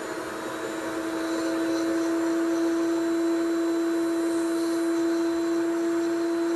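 Foredom SR flex-shaft motor driving a 266AMC surgical handpiece with a 702 bur, whining at one steady pitch over a grinding hiss as the bur cuts through the crown of a typodont molar set in gypsum. It grows louder about a second in.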